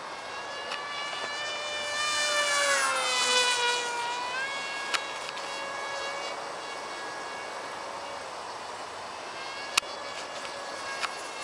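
RadJet 800 small electric RC jet flying overhead, its fan giving a high, turbine-like whine. The whine swells and glides down in pitch a few seconds in as the plane passes, then holds steady. Two sharp clicks come later.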